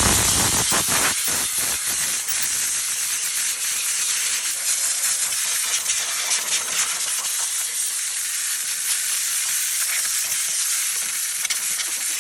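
Compressed air hissing steadily from an air compressor's blow nozzle, blasting dust out of a very dirty refrigerator condenser coil, with some low rumble in the first second or so.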